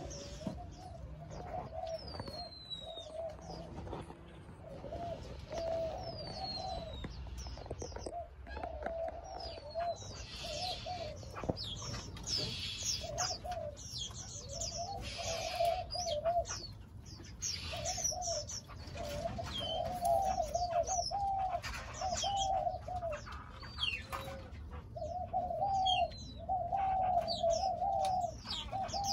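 Spotted doves cooing over and over, several birds' coos overlapping, with thin, high, downward-sliding chirps from smaller birds mixed in.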